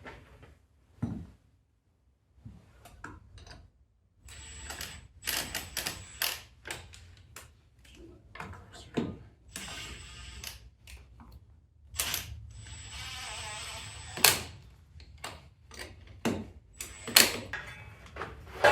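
Irregular metallic clicks, knocks and clanks of a wheel being fitted to a Jeep Cherokee XJ hub and its lug nuts run on, with two stretches of fast rattling, about four seconds in and again about twelve seconds in, like a ratchet or wrench spinning a nut.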